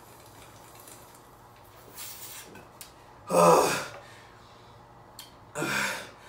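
A man gasping loudly for breath twice, a couple of seconds apart, as he pauses between gulps while chugging eggnog.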